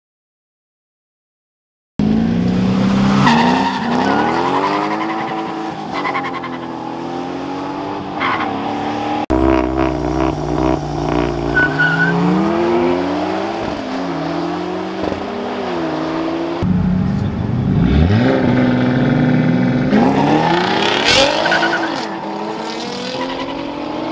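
About two seconds of silence, then street-race cars' engines revving and accelerating hard over several short edited clips, the pitch climbing and dropping again and again, with one steep climb near the end.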